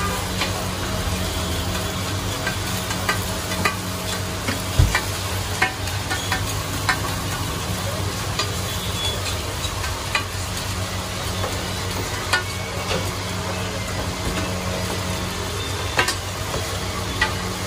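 Burgers sizzling as they fry on a large flat iron griddle, with sharp clicks and taps of a metal spatula against the griddle every second or two and one heavier knock about five seconds in. A steady low hum runs underneath.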